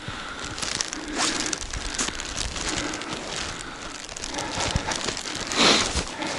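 Footsteps crunching in snow as a person walks over the snow-covered ice, with irregular crackling crunches.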